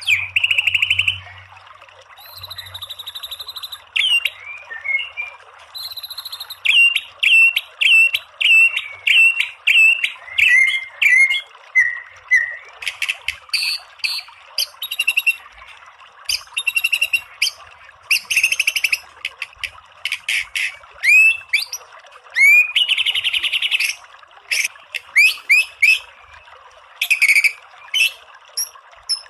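White-rumped shama (murai batu) singing rapid 'tembakan' phrases: quick series of short, sharp whistled notes and rising sweeps, broken by brief pauses, over a steady background hiss.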